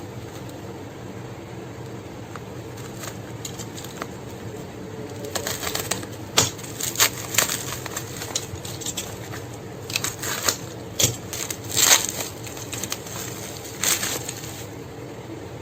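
Plastic packaging crinkling and rustling as it is handled and opened, in irregular crackly bursts starting about five seconds in and stopping near the end, over a steady low hum.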